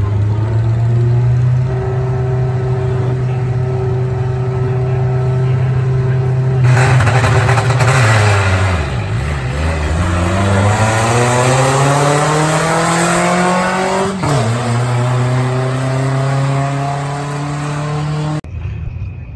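Two drag-racing vehicles, a pickup truck and a sedan, with engines held at a steady high idle on the starting line, then launching about seven seconds in. The engines rev up through the gears in rising sweeps broken by shifts as they run down the strip. The sound cuts off suddenly near the end.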